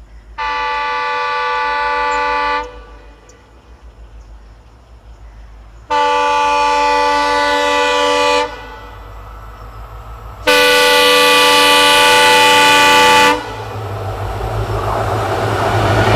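Multi-tone horn of an Indian Railways WDP4D diesel locomotive sounding three long blasts of about two to three seconds each as the train approaches at speed. After the third blast comes a rising rumble of the twin WDP4D locomotives and their train, growing loud as they draw close.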